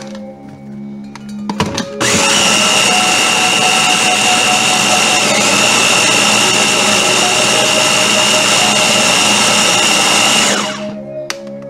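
Ninja blender's top-mounted motor head running steadily for about eight seconds, blending a thick oat and almond-milk mixture, with a constant high motor whine; it starts about two seconds in after a few clicks as the head is seated, and winds down near the end.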